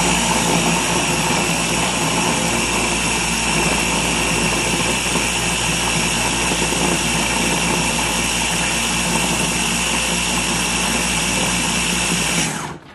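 Small press-top electric blender running steadily under hand pressure, blending frozen strawberries and yogurt into a smoothie mix. The motor cuts off suddenly near the end.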